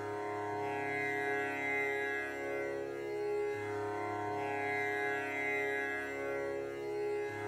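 Calm background music for meditation: a sustained drone of many held tones, with the low note shifting about every three and a half seconds.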